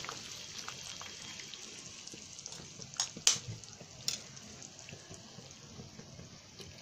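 Curry gravy bubbling at a steady boil in a pan, a soft continuous hiss, with eggs poaching in it. A few sharp clicks come about three to four seconds in.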